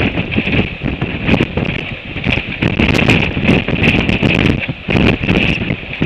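Gale-force wind buffeting the microphone: a heavy, gusting rumble with a steady hiss and frequent sharp crackles, rising and falling in surges.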